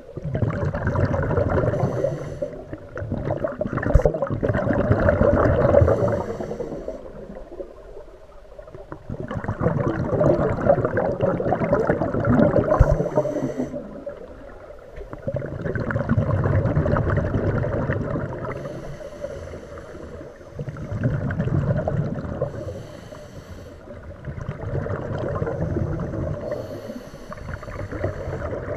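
Scuba diver breathing through a regulator underwater: a long rush of exhaled bubbles about every five to six seconds, with a thin high hiss of inhalation in the quieter gaps between.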